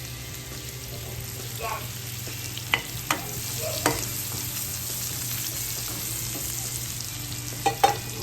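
Chopped onion frying in oil in a pan, sizzling steadily, with a utensil knocking against the pan a few times as it is stirred, around three seconds in and again near the end.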